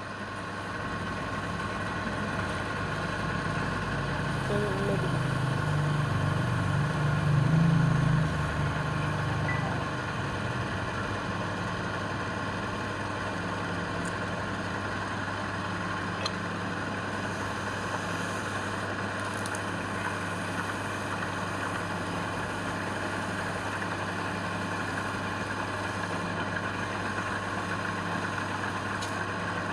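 Woodturning lathe's electric motor running steadily with a constant hum, with a louder low rumble from about four to ten seconds in.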